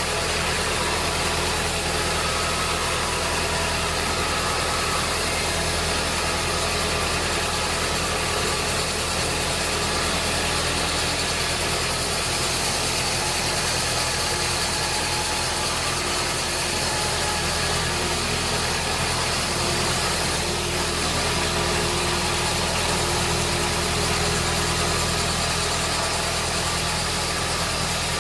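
Sawmill machinery running steadily at a constant pitch, an engine-like hum with no pauses.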